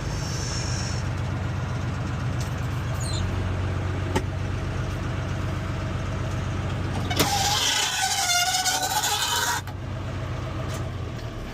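Ford F700 dump truck's engine idling steadily, with a loud hissing, squealing burst lasting about two seconds from about seven seconds in.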